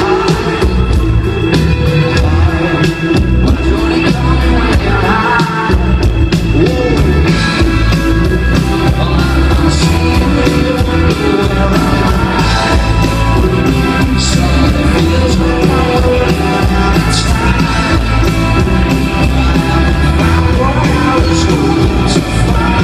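Rock band playing live, with electric guitars, bass and drums, heard loud from among the audience.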